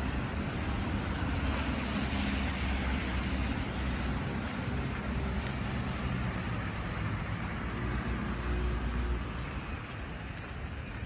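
Road traffic on a snow-covered, wet street: vehicles passing with a low engine rumble and tyre hiss. It eases off about nine seconds in.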